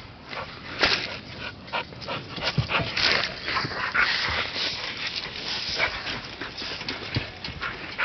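Puppy whimpering, mixed with many short rustles and rattling clicks.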